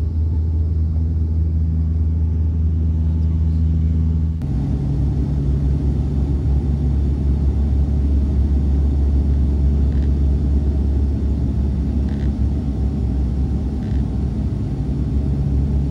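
Steady low drone of a Dash 8-100's twin turboprop engines and propellers, heard from inside the cabin. About four seconds in the drone shifts abruptly to a slightly lower pitch and stays steady.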